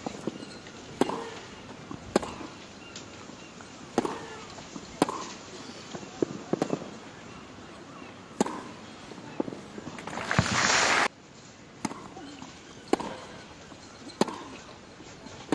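Tennis rally: racket strikes on the ball at roughly one a second, several followed by short player grunts. About ten seconds in, a loud burst of crowd noise lasts under a second and cuts off suddenly, then the ball strikes resume.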